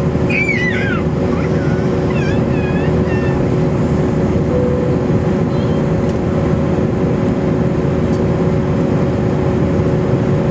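Cabin noise of an Airbus airliner in cruise: the jet engines and airflow make a steady, even rush, with two steady hum tones beneath it.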